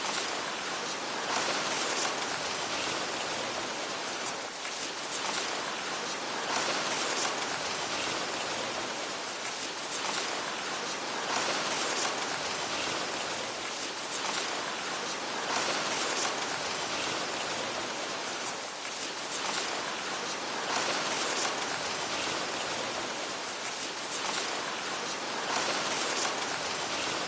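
Strong wind rustling through tree leaves: a dense, steady hiss that swells in gusts every four or five seconds.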